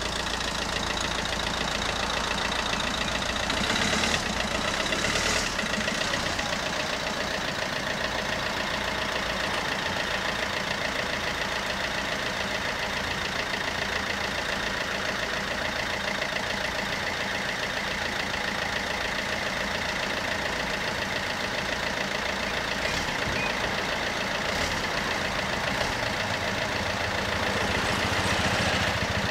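The two electric bells of an Italian FS 64 level crossing ringing rapidly and without a break while the barriers are down, over cars idling at the barrier.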